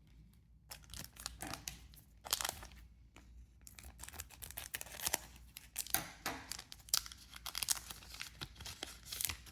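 A trading-card booster pack's wrapper being torn open and crinkled, in a run of irregular sharp rips and rustles.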